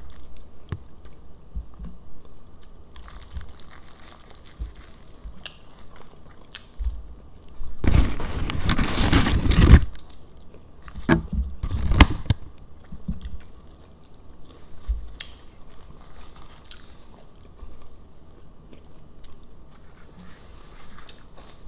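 Close-up chewing and crunching of fast-food burgers and chicken nuggets, with scattered small clicks and two louder noisy stretches, about eight and eleven seconds in.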